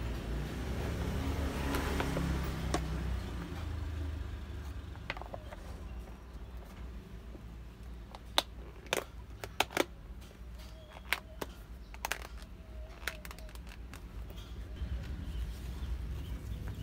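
Plastic compartment lunch box being closed, its snap-lock lid clips clicking shut in a series of sharp clicks. A low rumble fills the first few seconds.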